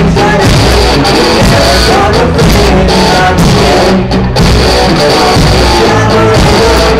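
Rock band playing live, with electric guitars, drum kit and a sung vocal, heard through the PA.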